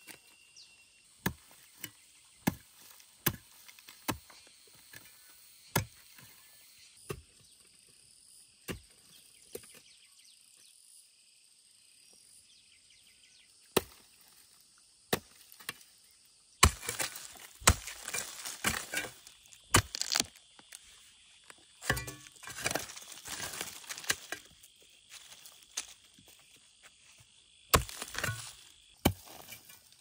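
A long-handled hand hoe chopping into dry soil, one sharp strike every second or so, then a pause of a few seconds. From a little past halfway the strikes come thicker, mixed with scraping and crunching of loose earth and dry debris.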